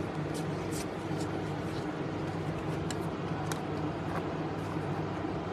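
Steady room hum with a few faint, scattered soft clicks of trading cards being handled and flipped.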